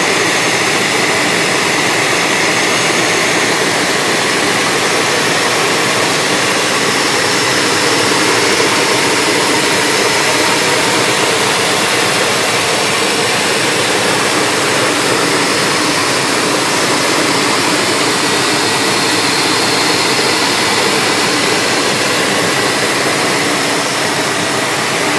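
Fuel-injected 350 small-block V8 idling steadily, heard close up over the open engine bay.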